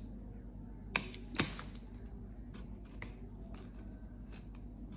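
Pen tip and fingernails picking at and peeling the protective film off a plastic paint palette: faint scratchy ticks and crinkles, with two sharper clicks about a second in.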